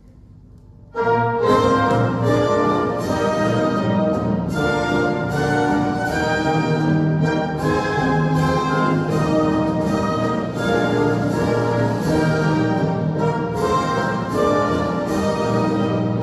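Orchestral music played from a vinyl record on a Zorin TP-S0 turntable through a pair of bookshelf speakers in a room, starting abruptly about a second in and then continuing at a steady level.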